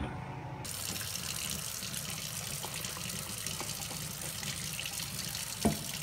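Kitchen tap running steadily into a stainless steel sink, splashing over a microwave turntable spinner. It starts abruptly about half a second in. There is one brief thump near the end.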